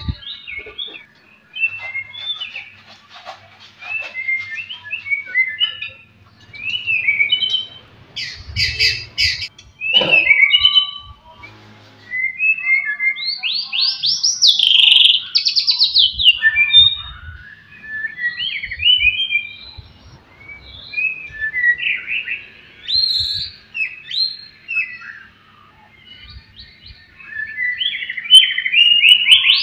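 White-rumped shama (murai batu) singing a long, varied song of short whistled phrases broken by fast rattling trills, the loudest about halfway through and again near the end.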